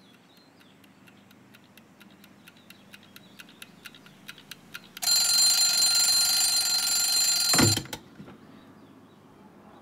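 Alarm clock ticking at about four ticks a second, growing louder. About halfway through, its alarm goes off with a loud, high ringing. After nearly three seconds the ringing cuts off with a knock as the clock is slapped off.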